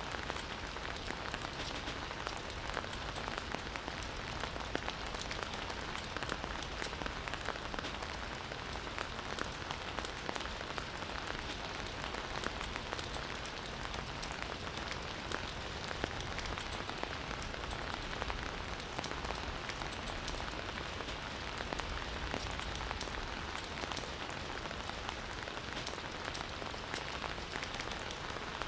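Campfire burning: a steady hiss of flames dotted with frequent small crackles and pops.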